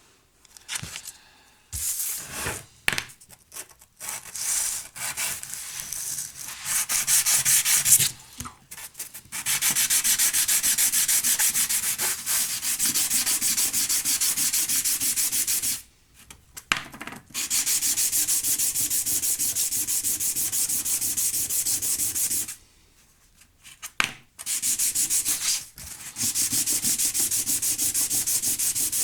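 Sandpaper rubbing, smoothing off sharp corners and edges so they cannot chafe electrical cables. Short, uneven strokes at first, then long runs of fast, even back-and-forth strokes, with two brief pauses.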